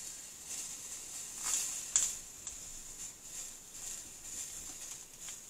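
Flux boiling and sizzling in soft swells under a hot soldering iron as solder wire is melted into a bead along a copper-foiled stained glass seam, with a sharp click about two seconds in. Soldering the second side traps the boiling flux, so it bubbles back up through the joint.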